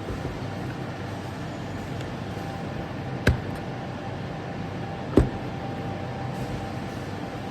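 A steady mechanical hum, with two sharp clicks about two seconds apart.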